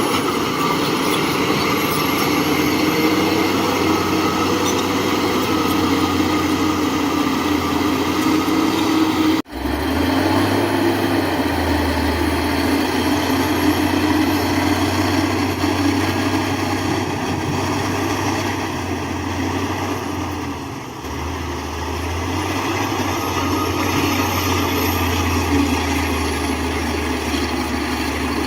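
Heavy diesel engine of construction machinery running steadily with a low drone. The sound drops out for an instant about nine and a half seconds in, and the engine pitch shifts a little a few times after that.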